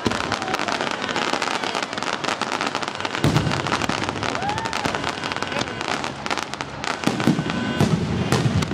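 Fireworks going off: a dense, continuous crackling of many small bursts, with deeper booms about three seconds in and again near the end.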